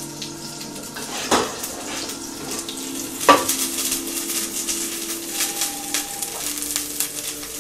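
Stainless-steel skillet clanking against the stovetop twice, about a second and a half in and again just past three seconds, as it is lifted and tilted on the burner. Food sizzles and crackles in the hot pan, getting busier after the second clank.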